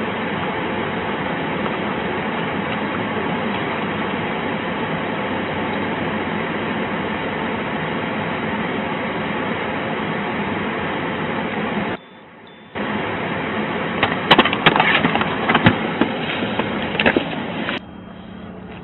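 Steady rushing noise inside a parked police patrol car, its engine and ventilation fan running. About twelve seconds in it drops out briefly, then a flurry of sharp clicks and knocks follows before a quieter steady background near the end.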